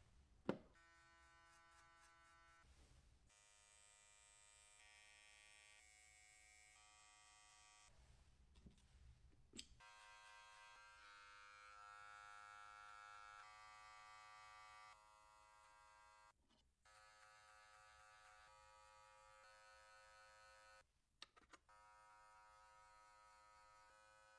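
Wahl Magic Clip cordless hair clippers buzzing steadily as they cut hair, in several stretches with abrupt breaks between them. A sharp click comes about half a second in.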